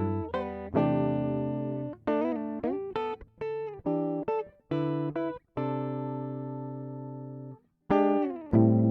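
Background music on guitar: plucked notes and chords ring out. One chord is held and fades for about two seconds, and the playing stops briefly near the end before picking up again.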